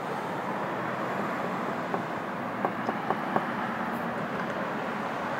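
Knuckles rapping on a wooden door: one knock about two seconds in, then a quick run of four knocks, over steady background noise.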